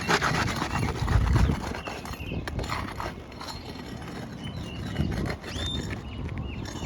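Irregular taps, knocks and scrapes from hands and tools working loose asphalt roof shingles, with wind buffeting the microphone about a second in.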